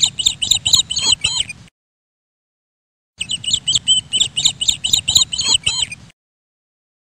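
Bird-chirp sound effect: a quick run of high chirps at about six a second, played as two bursts of about three seconds each. Each burst starts and stops abruptly, with dead silence between them.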